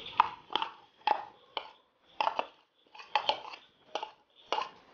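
Metal spoon knocking and scraping against a blender jar, about two short irregular taps a second, as thick ground onion-and-chili paste is worked out of the jar.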